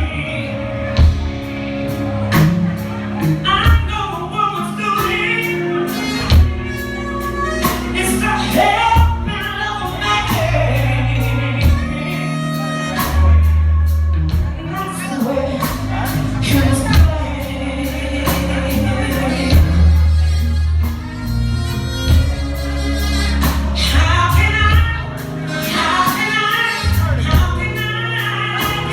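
Live R&B band playing a song with a singer, the drum hits and bass line running steadily under the sung melody.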